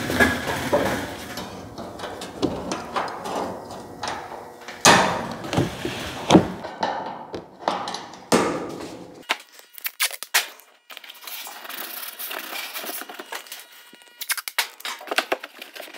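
A stiff pressed-paper template rustling and crinkling as it is handled and pressed against the car's sheet-metal nose, with a few sharp knocks. Over the last several seconds there is a higher, crackly rustle, masking tape being pulled off the roll and torn.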